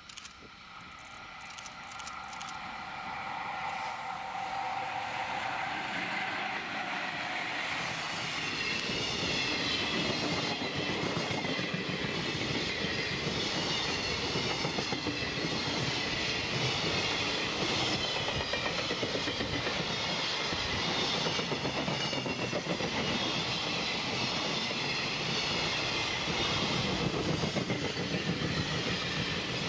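Freight train hauled by a JR Freight EF66 electric locomotive, approaching and then passing close by: the noise builds over the first eight seconds or so, then holds as a steady clatter of wagon wheels over the rails. A steady ringing tone is heard in the first few seconds and fades as the train noise rises.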